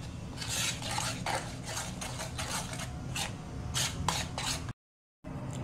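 Metal spoon stirring and scraping flour into sugar syrup in a steel pan: a run of short rasping scrapes against the pan, with a brief total dropout near the end.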